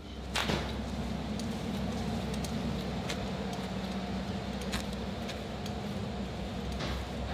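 A steady low mechanical hum with scattered light clicks and metallic jingles, and one sharp knock about half a second in.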